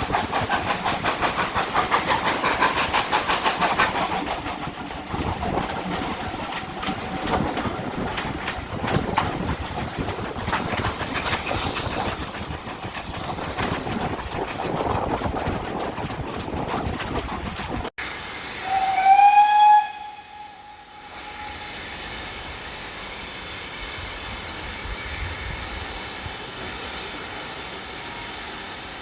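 Steam locomotive running with rapid exhaust beats, loudest in the first few seconds. After a sudden break, a single loud steam whistle blast of about a second, then quieter running.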